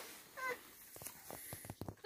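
A short, faint voice sound about half a second in, then several light clicks in a quiet room.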